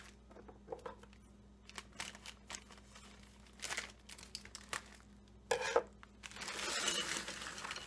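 Plastic bag of frozen mixed vegetables crinkling as it is handled and opened, in short scattered bursts and then a longer stretch of rustling near the end.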